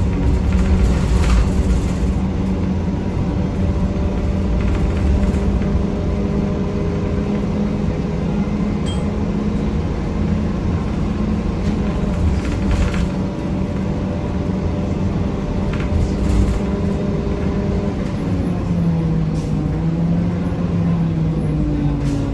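1993 Gillig Phantom transit bus under way, its Cummins ISM diesel and Allison B400R transmission giving a loud, steady grinding drone over a low rumble, with a few rattles and knocks. The pitch drops about three-quarters of the way through and climbs again near the end. The grinding, present throughout the ride, is what the owner suspects comes from the transmission.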